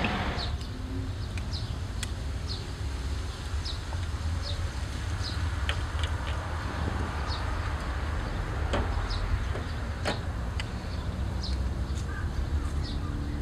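Street ambience: a steady low rumble of distant traffic, with short high bird chirps about once a second and a few faint clicks.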